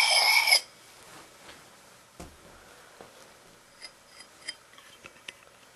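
Lansky puck stone grinding the edge of a Cold Steel kukri in small circles, the steel blade ringing, stopping abruptly about half a second in. Then a few faint clicks and taps as the blade and stone are handled.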